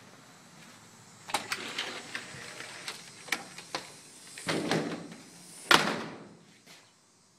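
Metal-framed storm door being worked open: a run of latch clicks and rattles, a scraping swing, then a single loud bang as it shuts about six seconds in.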